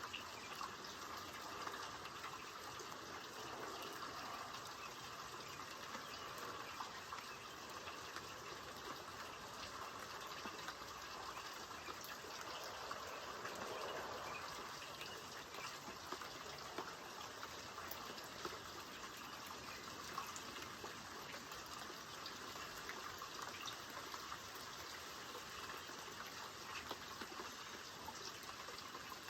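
Steady rain falling, an even hiss with many small drop ticks running through it.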